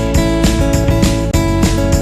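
Instrumental music led by guitar over bass, with a steady beat.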